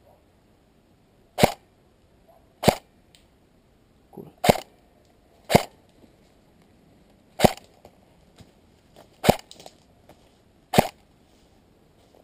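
Airsoft rifle firing single shots: seven sharp cracks, spaced about one to two seconds apart.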